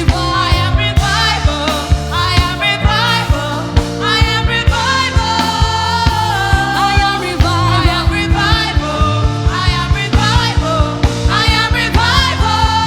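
Gospel song performed by a church choir and live band: voices singing over steady drum hits and bass notes.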